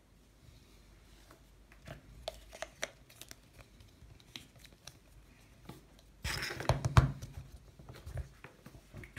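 Plastic Play-Doh Can Heads pieces being handled and fitted onto a dough can: scattered small clicks and taps, then a louder rustling scrape a little past the middle, followed by a few more clicks.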